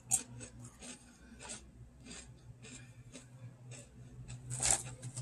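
Crispy coconut wafer roll being bitten and chewed: a string of irregular dry crunches, with a louder burst of crunching near the end.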